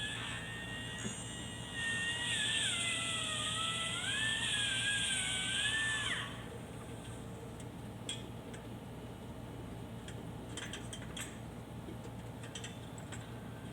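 Angle grinder running with a high whine whose pitch dips and recovers, as under cutting load, then stopping suddenly about six seconds in; scattered light clicks follow.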